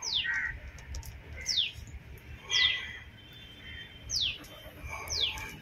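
A bird calling: five short, sharp whistles that slide downward in pitch, about one a second, with softer chirps in between.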